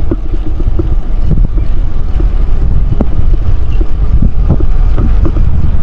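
Wind buffeting the microphone and tyre rumble of a mountain bike riding on a rough paved road: a loud, steady low rumble with scattered light clicks and rattles.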